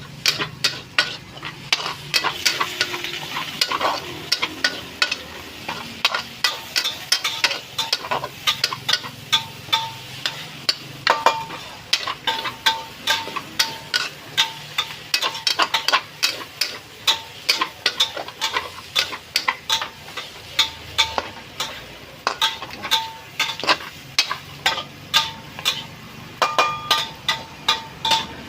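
Fried rice being stir-fried in a hot metal pan: a spatula strikes and scrapes the pan about twice a second, many strokes with a short metallic ring, over a steady sizzle.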